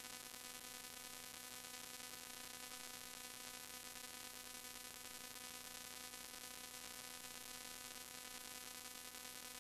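Faint, steady electrical hiss with a low hum made of several even tones: line noise from a recording with no programme sound.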